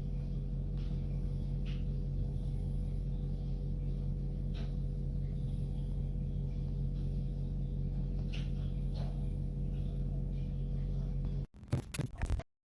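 Steady low hum with a thin higher tone over it and a few faint clicks, breaking into crackling about eleven and a half seconds in before cutting off.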